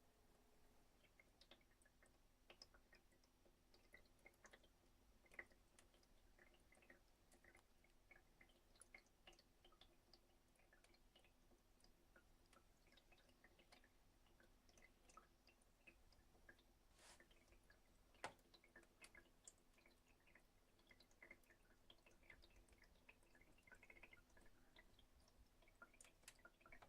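Very faint, irregular drips and small ticks of water trickling through a freshly changed Brita filter cartridge, over a faint steady hum.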